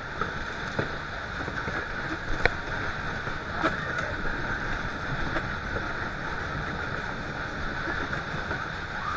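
Groove Rider fairground ride in motion, heard from on board: a steady rush of wind and ride machinery noise, with a few sharp knocks in the first four seconds.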